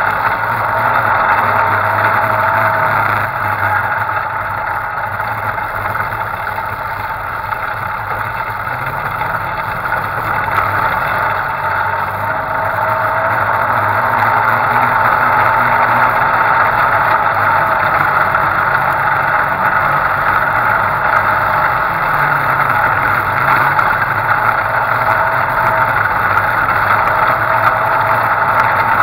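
Off-road vehicle's engine running under way across dirt and sand, its pitch rising and falling a few times as the throttle changes, over a steady rush of wind and road noise.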